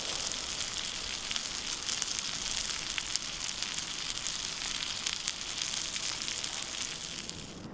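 Food sizzling in a skillet: a steady hiss with many small pops and crackles, cutting off suddenly near the end.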